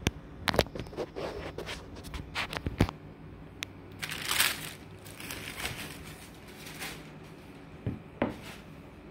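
Handling noise as a canvas sneaker is moved about on its display stand: a run of sharp clicks and knocks, a rustle about four seconds in, then two more knocks near the end.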